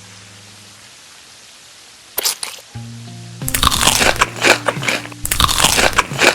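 Loud crunching of crispy food being bitten and chewed close to the microphone, starting about two seconds in and then running in two long stretches, over soft background music.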